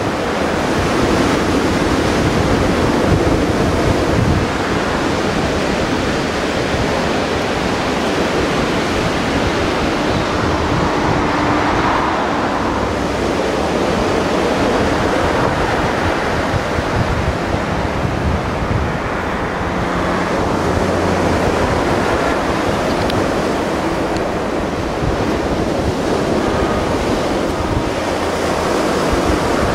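Mediterranean Sea surf: a steady rush of waves washing in, swelling and easing slightly now and then.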